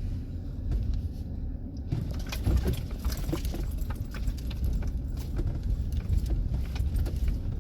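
Van driving slowly over a rough dirt road: a low road and engine rumble, with loose items rattling and clinking from about two seconds in.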